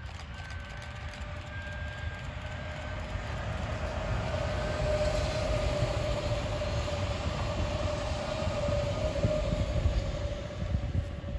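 Double-deck electric commuter train passing at speed: a rumble of wheels on rails that grows as it approaches, with a steady whine, and starts to fade near the end.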